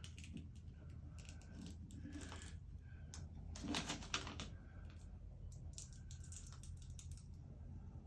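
Clear transfer tape being peeled slowly back off vinyl decal lettering, giving faint irregular crackling clicks, with a louder cluster about four seconds in.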